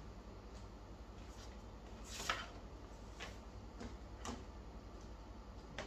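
A few light clicks and taps from unboxing items being handled and set down, the sharpest about two seconds in, over a low steady hum.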